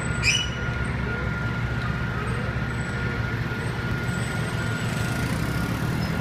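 Heavy diesel engine running steadily at idle, with a low rumble and a faint steady whine over it. A brief high-pitched squeak comes near the start.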